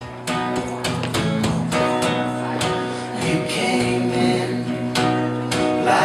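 Acoustic guitar strummed in a steady rhythm, playing the introduction to a song.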